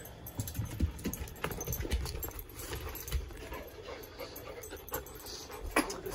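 A dog panting right at the microphone, with irregular bumps and rustles from the phone being handled.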